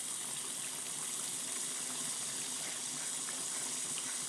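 Sautéed tomato-and-chili sambal sizzling steadily in the pan, with a few faint small ticks.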